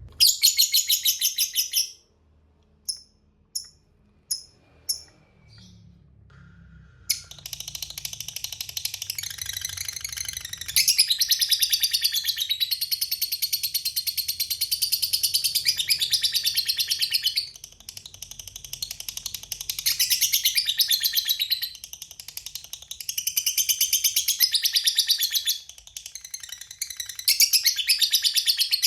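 Lovebird ngekek: long bouts of very rapid, high-pitched chattering trill, each lasting several seconds with short breaks between them. Near the start there is one short burst of the trill followed by four single chirps before the long bouts begin.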